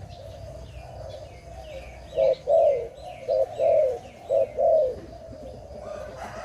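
Malay (zebra) dove cooing: a soft warbling coo runs throughout, broken by three loud phrases, each a short note followed by a longer one. A small bird gives a run of short, falling high chirps over the loud coos.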